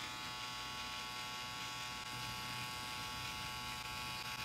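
Corded permanent-makeup tattoo pen buzzing steadily as it is worked over an eyebrow tattoo to take out the old pigment.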